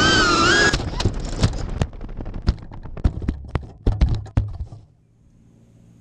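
QAV-X racing quadcopter's T-Motor F40 Pro 2600kv brushless motors with four-blade props whining, cutting off abruptly under a second in as it crashes. A run of sharp knocks and clicks follows for a few seconds as the quad tumbles over the ground, then it goes quiet.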